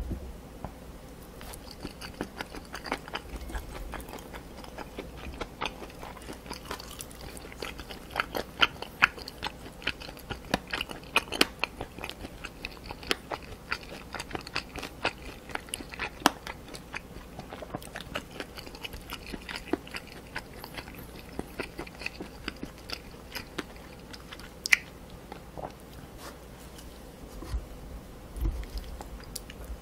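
Close-miked chewing of spicy Korean pork cartilage and chicken feet: a dense run of sharp crunching bites and wet mouth sounds, busiest in the middle, with a single sharp crack a few seconds before the end.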